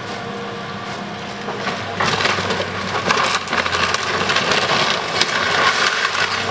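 A Caterpillar excavator's bucket crushing the wooden frame of a small shop building: a steady engine hum, then about two seconds in loud crunching with many sharp cracks of splintering wood as the facade gives way.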